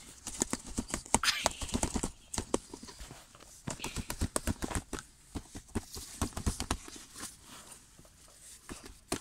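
Hands slapping, pressing and kneading slime on a notebook cover: a quick, irregular run of wet slaps, squishes and small clicks that thins out after about seven seconds.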